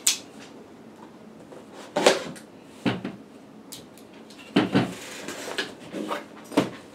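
Cardboard box being handled and opened: several short, separate scrapes and knocks of cardboard as the lid is lifted.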